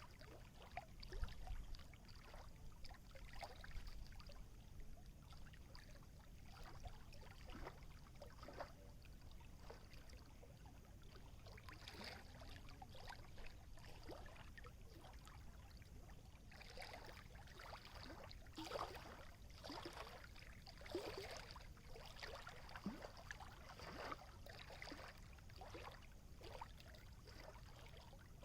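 Small water waves lapping and splashing faintly and irregularly, with a steady low rumble beneath and livelier splashes in the second half.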